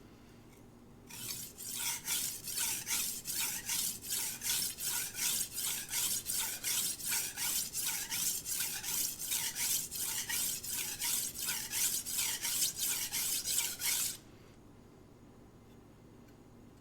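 Knife blade stroked back and forth on a coarse King 300-grit whetstone, an even rasping scrape at about two to three strokes a second, starting about a second in and stopping some three seconds before the end. These are passes to raise a burr on the edge.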